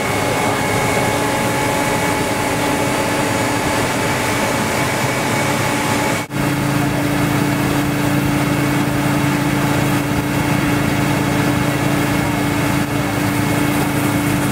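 Snow-clearing rail vehicle running, a steady machine drone with a rushing noise as it throws snow off the tracks. About six seconds in the sound cuts off abruptly and comes back as a lower, steadier engine hum.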